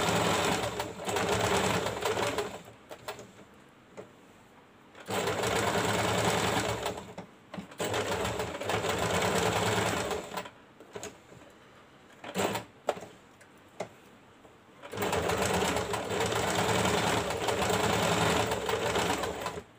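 Domestic electric sewing machine stitching along a fabric edge, running in four stretches of a few seconds each with pauses and a couple of brief spurts in between, and stopping at the end.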